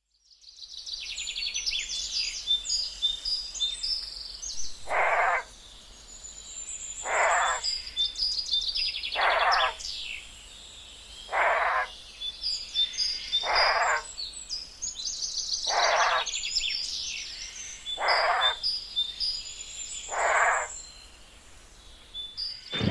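Birds chirping and singing throughout, with a short call repeated eight times about every two seconds: a designed sound effect meant as the call of a Nanotyrannus.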